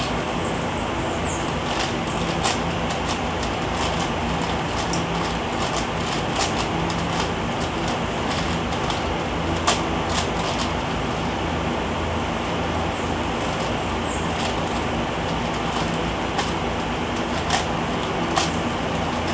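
Eastsheen 5x5 puzzle cube being turned quickly by hand: irregular plastic clicks and clacks as its layers snap round, a few sharper than the rest, over a constant steady hum and hiss.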